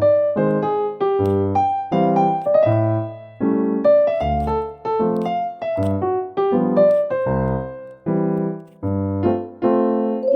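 Background piano music: a gentle melody over steady chords.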